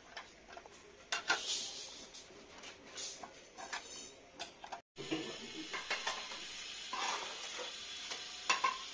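Scattered light metallic clinks and taps as steel rebar rods are handled, then, after a short break, a mason's trowel scraping mortar and clinking against blocks and bucket over a steady hiss.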